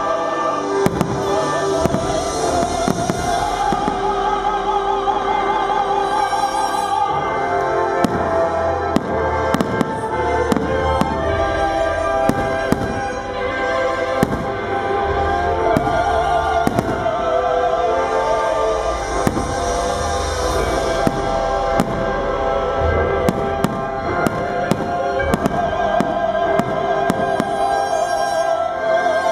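Aerial fireworks shells bursting one after another, many sharp bangs at irregular spacing, over continuous loud music.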